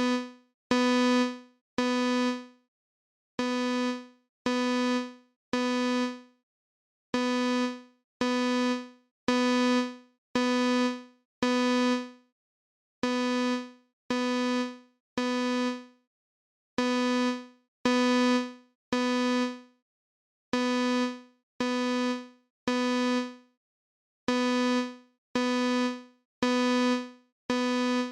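Synthesized imitation of a Simplex fire alarm sounding a code-3 (temporal-three) pattern, made in Chrome Music Lab Song Maker. A low, buzzy electronic tone repeats about once a second, each note fading as it sounds, in groups of mostly three separated by short pauses.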